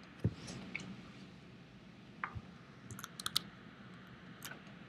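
Scattered clicks of a computer keyboard and mouse, with a quick run of four or five clicks about three seconds in, over a faint steady room hum.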